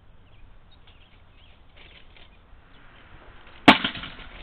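A single sharp bang about three and a half seconds in, followed by a short ringing tail: a decoy package rigged with a blank cartridge going off as a porch thief takes it.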